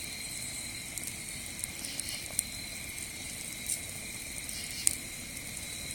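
Wood campfire crackling, with a few sharp pops, the loudest about two and a half and five seconds in, over steady chirping of crickets.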